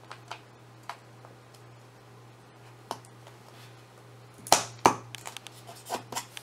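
Small clicks and taps of a PLCC floating point unit chip being handled and pressed into its surface-mount PLCC socket on an Amiga 1200 motherboard. Two sharper clicks come about four and a half seconds in, followed by a run of lighter clicks.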